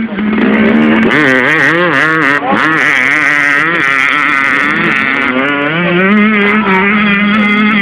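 Motocross dirt bike engine revving hard, its pitch rising and falling quickly with the throttle as it crosses the track's bumps and jumps, then settling into a steadier drone over the last couple of seconds.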